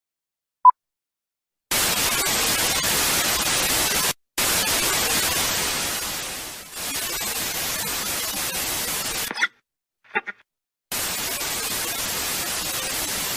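Static sound effect: a brief single beep, then loud, even white-noise hiss in three stretches broken by short silences, with a couple of short electronic chirps in the gap near the end.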